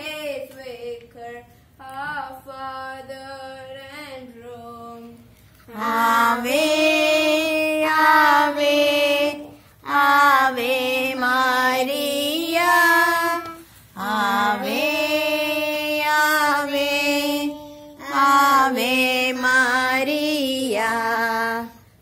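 Young girls singing a hymn to the Virgin Mary together without accompaniment, in several long phrases with short pauses for breath between them; the second phrase is sung more quietly.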